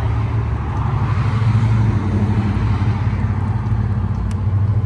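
A motor vehicle engine running steadily, a continuous low rumble, with a faint click about four seconds in.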